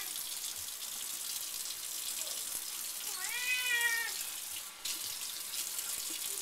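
Kitchen tap running steadily into a sink while a wet cat being bathed gives one drawn-out meow about three seconds in, rising and then falling in pitch.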